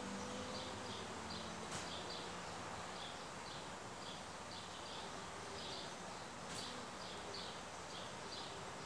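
Steady outdoor background with a regular series of short, high chirps, about two or three a second, and two faint clicks. A faint low, drawn-out sound in the first two seconds fits one of the two cats growling in their standoff.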